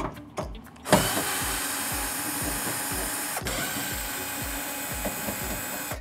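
Power screwdriver running on a long bit, unscrewing the screws along the washing machine's bottom front panel. It starts about a second in and runs steadily, with a brief break about halfway through.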